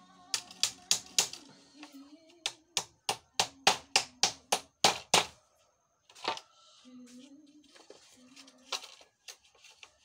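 Claw hammer striking a nail against wooden floor slats: a quick run of about fifteen sharp blows over the first five seconds, then a pause, one more blow, and a few lighter ones near the end. Faint music plays underneath.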